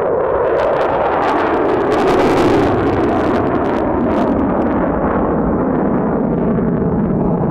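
Blue Angels F/A-18 Super Hornet's twin turbofan engines roaring through a tight turn. A harsh crackle builds, is loudest about two to three seconds in, and eases back to a steady roar after about four seconds.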